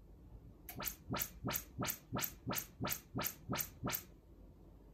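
Audyssey MultEQ room-calibration test tones from a Marantz Cinema 50 AV receiver played through the speakers: a rapid series of about eleven short falling sweeps, roughly three a second, starting just under a second in and stopping about four seconds in. They are the receiver measuring the speaker's response at the microphone position.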